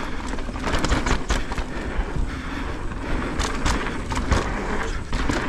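Santa Cruz Megatower mountain bike riding down a trail: a steady rush of tyres rolling over dirt, broken by many sharp clattering knocks from the bike over rough ground.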